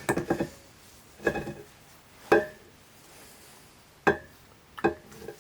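Metal parts of an old turbine governor clinking and knocking as they are worked loose and handled: five separate clanks, the loudest a little before halfway.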